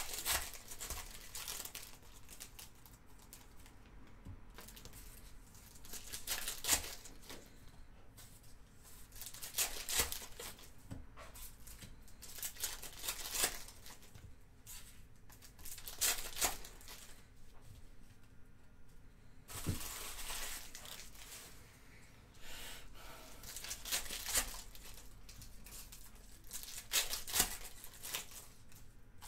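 Foil wrappers of trading card packs being torn open and crinkled by hand, in short bursts every few seconds.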